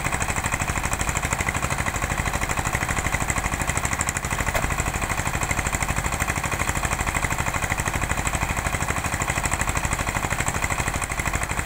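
An engine running steadily, with a fast, even chugging pulse that keeps the same speed throughout.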